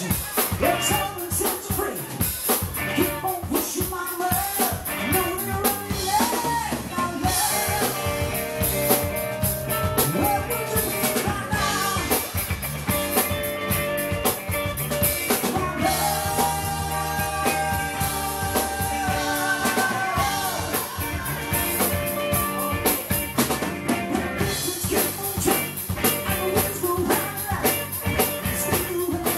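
Live rock band playing: drum kit and electric guitar under a male lead singer's vocals. About halfway through, a passage of long held notes comes in for a few seconds.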